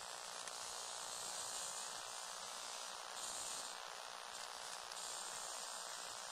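Small electric motors and plastic gears of a motorized Lego Technic grader whirring as it drives, a steady high hiss-like buzz that swells and fades a little as the model moves.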